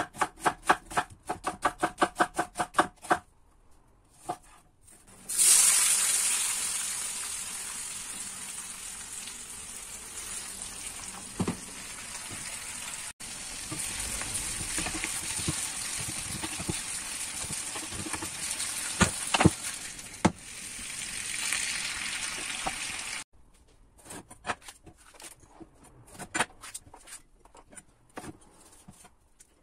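Knife chopping onion on a wooden cutting board in quick, even strokes, about four a second. A few seconds in, sliced onion goes into a hot frying pan and starts sizzling loudly at once; the sizzle eases and runs on steadily while a wooden spoon stirs, with a few knocks of the spoon against the pan. Near the end, a knife slices pepper on the wooden board in irregular cuts.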